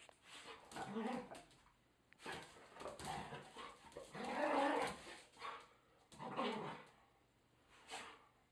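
Two dogs, an Irish Setter among them, whining and yelping excitedly in rough play before a meal, in a run of irregular bursts, the loudest a little before the middle.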